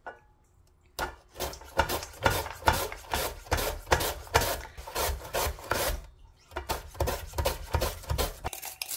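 Korean radish being julienned on a plastic mandoline slicer set across a steel bowl: quick, repeated rasping strokes, about two or three a second. They start about a second in, pause briefly about six seconds in, then go on.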